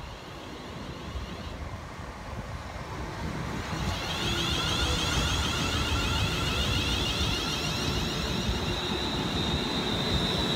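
London Northwestern Railway Class 350 Desiro electric multiple unit running past the platform, its sound growing louder until it jumps up about four seconds in, then a steady loud rush of wheels and running gear on the rails with a high steady tone over it.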